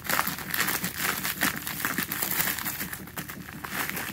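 Plastic bubble mailer crinkling and crackling as it is torn open by hand, a dense run of small rustles and crackles.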